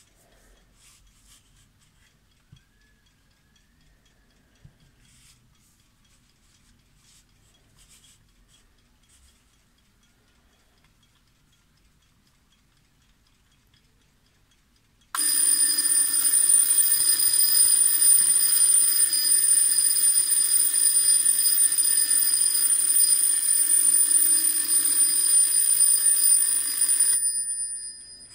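Kaiser vintage twin-bell alarm clock's alarm going off: a sudden, loud, continuous ringing as the striker rattles between the two bells, about halfway through. It cuts off near the end, leaving a brief fading ring.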